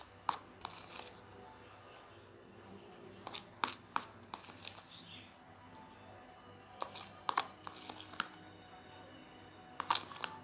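Scattered sharp clicks and taps in small clusters, the sound of objects being handled, over faint background music.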